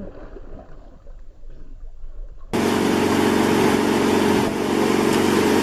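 After a faint start, a 150 hp outboard motor cuts in loud and steady about two and a half seconds in, running a boat at speed, with the rush of its wake and wind over it.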